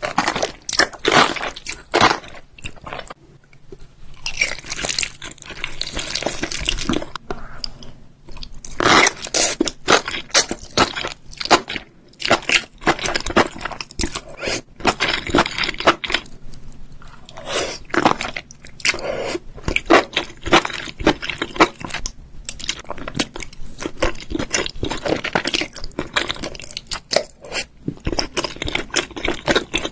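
Close-miked chewing of enoki mushrooms in red chili sauce, with many small, irregular wet crunches and mouth sounds.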